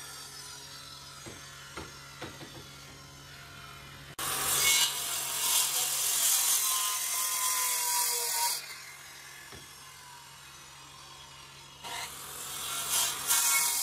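Makita circular saw cutting along a wooden board, in two loud stretches: one starting about four seconds in and lasting about four seconds, another starting near the end, with quieter gaps between.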